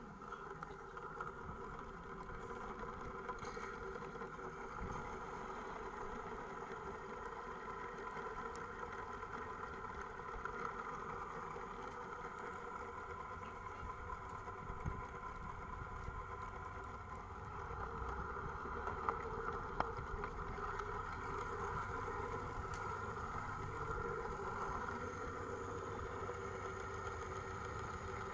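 Gauge 1 model train running on its track: a steady mechanical whine with wheel and rail noise, a little louder in the second half.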